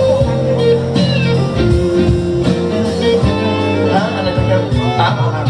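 Instrumental break in a pop song's backing track, with guitar playing between the sung lines.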